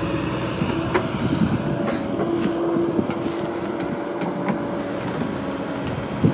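Excavator engine running steadily under load, with a few short metallic knocks and clicks.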